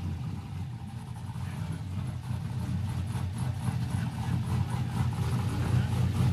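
2002 Z28 Camaro drag car's V8 idling with an uneven, pulsing beat, growing slightly louder toward the end.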